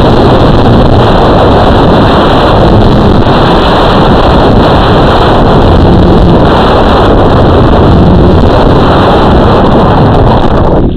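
Loud, distorted wind and motor noise from an RC FPV craft's onboard camera microphone. It holds steady, then cuts off abruptly near the end.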